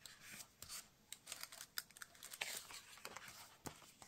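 Sticker sheets being handled and leafed through: faint, irregular crinkling and light paper clicks.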